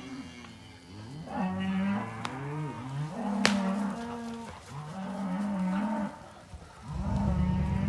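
Several cattle mooing, one long low call after another with little pause, some overlapping. A single sharp crack sounds about halfway through, and a louder, rougher moo comes near the end.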